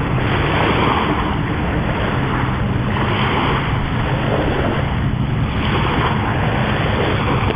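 Surf washing on the beach with wind buffeting the microphone: a steady loud rush that swells every couple of seconds.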